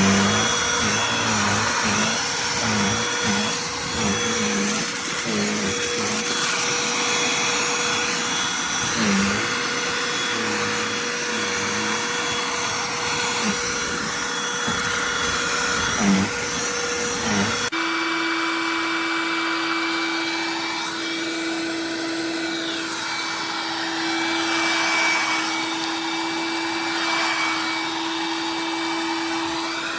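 Cordless handheld pet vacuum running steadily with a motor whine. About two-thirds of the way through, an abrupt cut switches to a vacuum with a lower-pitched, steadier hum.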